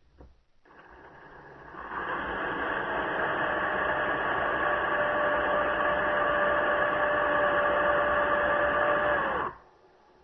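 A steady machine-like rushing noise with a single steady whine in it. It builds up over the first two seconds and cuts off sharply about nine and a half seconds in.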